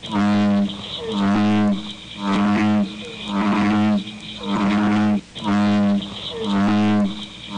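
A person's snoring altered by a voice effect to sound like a bullfrog: a loud, pitched croak of about half a second, roughly once a second, alternating with a softer breathy draw between them.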